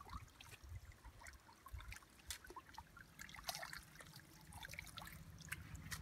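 Faint water trickling and small splashes, with scattered light ticks, as a fishing net is gathered and worked by hand in shallow river water. A faint steady low hum comes in about halfway through.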